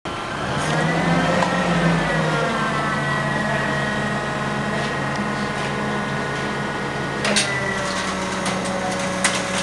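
Forklift's hydraulic mast lift running with a steady whine as it raises the forks, with two sharp knocks, one about seven seconds in and one near the end.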